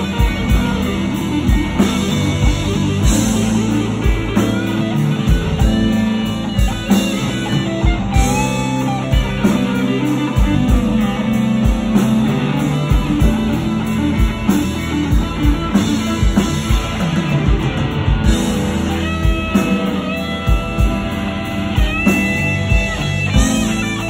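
Live rock band: a hollow-body electric guitar plays a lead solo of sustained, bending notes over a steady drum beat.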